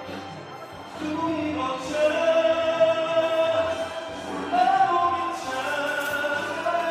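Background music with singing: long held sung notes over an accompaniment.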